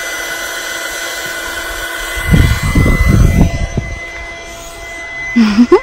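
A steady engine-like drone of several held tones, with a burst of low rumbling from about two to four seconds in and a short swooping sound near the end.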